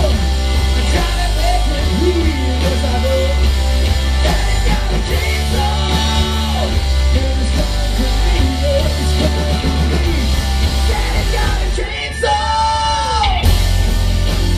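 Rock band playing live: electric guitars, bass and drums with a male singer. About twelve seconds in, the band drops out for a moment under one long held vocal note that falls off at its end, then the full band crashes back in.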